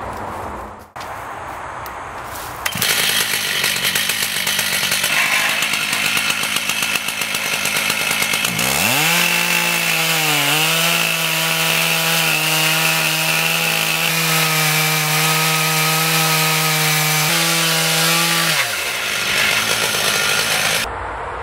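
Stihl two-stroke chainsaw in a chainsaw mill ripping lengthwise through an oak stump. The engine is held at full throttle over a harsh rasp of chain cutting wood. Its note dips briefly as it takes the load, then holds steady and winds down near the end.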